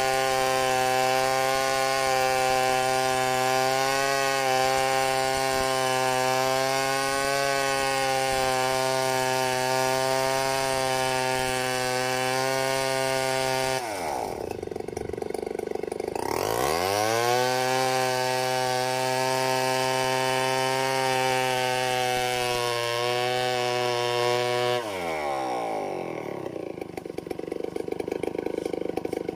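Large two-stroke chainsaw running at high revs, ripping lengthwise through a log in freehand milling. The engine note drops sharply about halfway through and climbs back, then drops again near the end.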